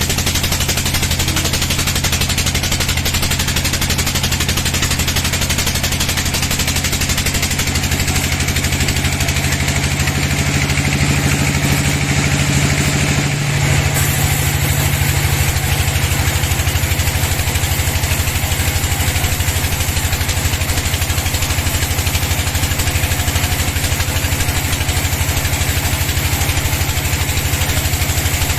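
Sawmill band saw machine running steadily, its motor humming under a continuous hiss of the blade. About halfway through the level dips briefly and the low hum changes.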